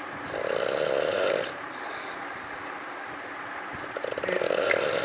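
A person snoring: two snores about three and a half seconds apart, the second with a fast fluttering rattle.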